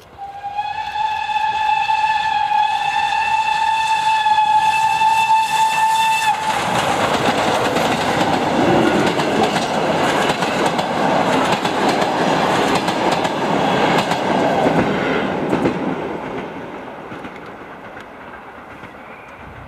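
Ol49 steam locomotive's whistle blown once for about six seconds, one steady tone rising slightly in pitch. The locomotive and its passenger train then pass close by in a loud rush of noise, with wheels clicking over the rail joints, and the sound fades away near the end.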